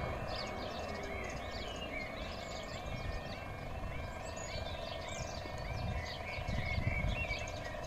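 Level crossing warning alarm sounding a repeating short rising tone, warning road users that a train is approaching and the barriers are about to lower. Birds chirp over it.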